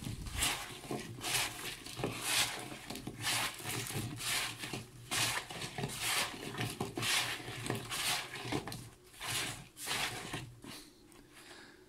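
Rubber-gloved hands tossing raw potato wedges with seasoning in a plastic bowl: a run of rubbing, rustling strokes, about one or two a second, growing fainter near the end.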